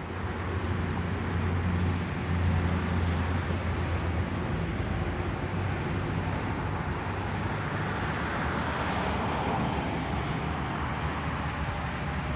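Airbus A330 jet engines on final approach, heard as a steady broad rumble with a low hum that swells about eight to ten seconds in.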